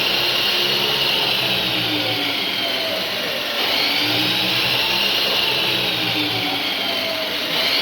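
Power hacksaw machine running and cutting clamped metal stock: a continuous scraping hum whose high tone sweeps up and down in a slow cycle, about once every four seconds.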